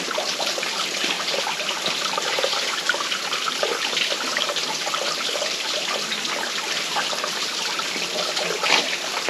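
Small woodland waterfall with low water, a steady trickling and splashing over rock, its flow thin from drought.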